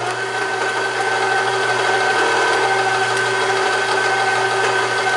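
KitchenAid stand mixer's motor and gearbox running a beater in an empty bowl, rising as it switches on and then holding a steady hum with a high whine. It runs evenly without skipping on its freshly replaced gears.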